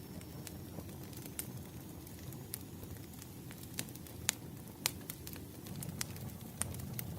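Campfire crackling: irregular sharp pops and snaps over a steady low rumble of burning, with a couple of louder pops in the middle.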